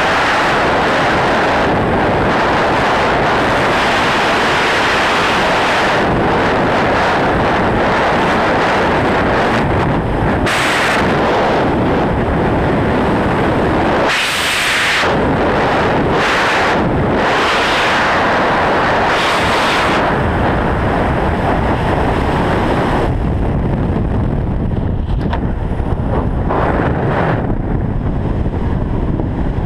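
Freefall wind rushing over a skydiver's camera microphone: a loud, steady roar with a few brief surges of hiss. About three-quarters of the way through the hiss thins and a low rumble is left.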